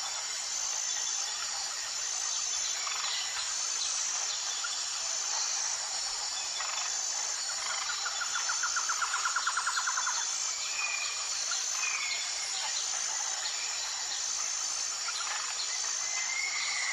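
Wild birds calling over a steady high-pitched insect drone. About eight seconds in, a rapid trill lasts about two seconds, and short slurred whistled notes come a few times near the end.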